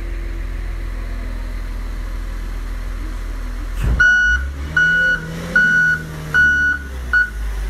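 Work machine's engine running with a steady low rumble; about four seconds in, just after a knock, its reversing alarm sounds five high beeps, spaced a little under a second apart.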